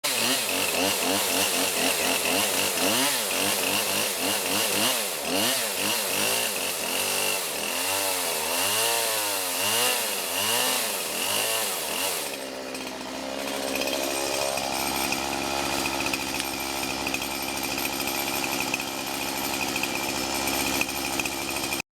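Chainsaw cutting dead wood, its engine speed rising and falling again and again as it bites. About halfway through it settles into a steady, lower running note.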